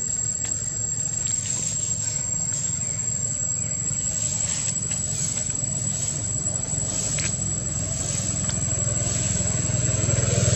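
Steady low rumble of a motor vehicle's engine, growing louder near the end, under a continuous high-pitched insect drone.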